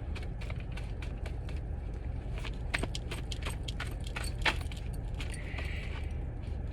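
Tarot cards being shuffled and handled: an irregular run of light clicks and flicks over a steady low hum.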